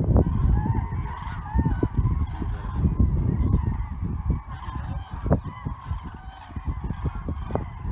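Flocks of migrating common cranes calling overhead, many trumpeting calls overlapping without a break, over a low, gusty rumble.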